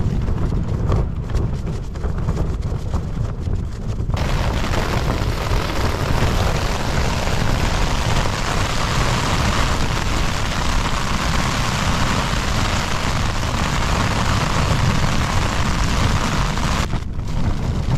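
Storm wind buffeting a Fjallraven Abisko Lite 2 tent, heard from inside as a steady low rumble. From about four seconds in, heavy rain and hail pelt the flysheet in a dense, even hiss, which stops abruptly near the end.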